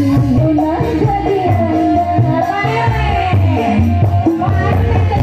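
Live dangdut music from an orkes melayu band played loud through a stage PA, with a steady drum-and-bass beat under a sung melody.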